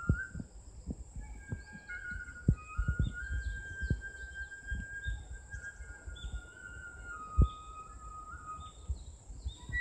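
Japanese transverse bamboo flute (yokobue) playing a slow melody of long held notes, stepping from one pitch to the next about every second. Irregular low thumps from footsteps of someone walking run underneath.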